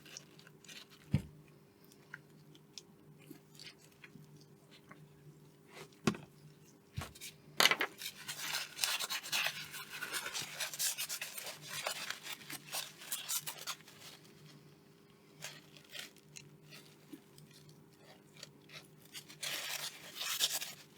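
Stiff-bristled brush scrubbing a circuit board during a final solvent flush to clear flux residue: scratchy scrubbing strokes for several seconds in the middle and again near the end. There are a couple of sharp knocks early on and a faint steady hum underneath.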